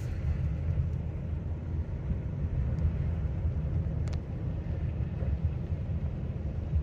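Steady low rumble of a car driving, heard from inside the cabin, with a couple of faint ticks.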